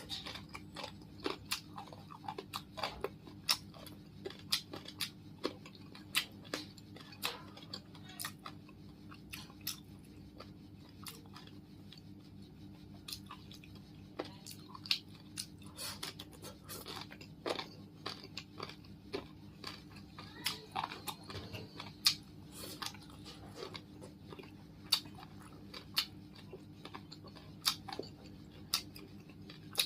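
Close-miked chewing and crunching of Vietnamese gỏi salad, with frequent short crisp crunches over a steady low hum.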